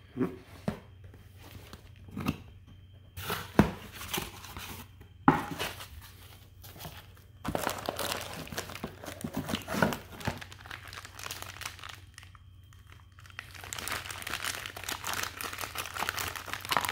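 Clear plastic wrapping crinkling and rustling as a hand unpacks a scooter cylinder kit from a cardboard box, in irregular spells with pauses. Two sharp knocks or clicks come in the first few seconds, and the rustling is denser in the second half.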